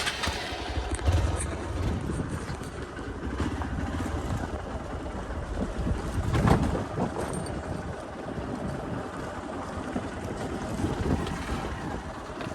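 Wind buffeting the microphone: a steady low rumble with a rushing hiss, and a stronger gust about six seconds in.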